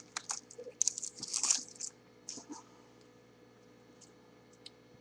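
Wrapper of a jumbo trading-card pack crinkling in several quick bursts as it is opened by hand, then only a few faint rustles and ticks.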